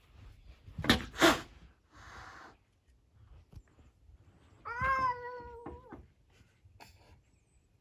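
A cat's paw knocks twice on a glass door about a second in, loudly, followed by a brief hiss. About five seconds in a cat gives one drawn-out meow, holding its pitch for about a second before stopping.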